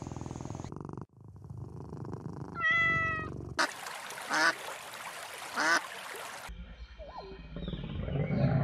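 A short animal call about three seconds in, then two rising whistled calls from a wood duck, then a lion's low growl that grows louder near the end.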